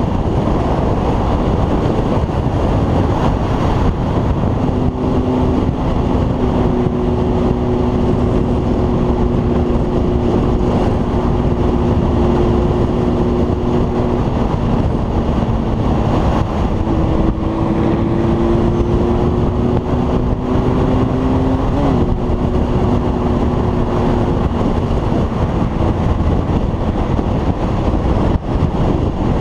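Honda motorcycle cruising at road speed, heavy wind rush over a helmet-mounted microphone mixed with the engine's steady hum. The engine tone climbs slowly for a few seconds past the middle, then drops abruptly.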